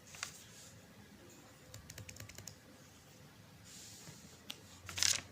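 Computer keyboard keys being tapped in short runs of clicks, with a louder cluster of keystrokes near the end: a 12-digit card number being typed in.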